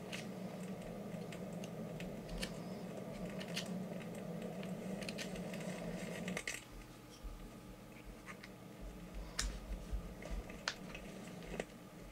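Small knife whittling a piece of wood into a fork: scattered scrapes and clicks of the blade cutting the wood. Under them a steady low hum cuts off suddenly about six and a half seconds in.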